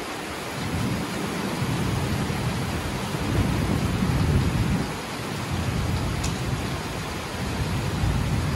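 Heavy rain hissing steadily, with a low rumble of thunder that swells from about a second in to a peak near the middle and fades; another rumble begins near the end.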